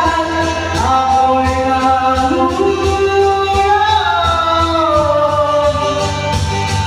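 A man singing long held notes into a handheld microphone over backing music. Near the end he stops singing and the music carries on.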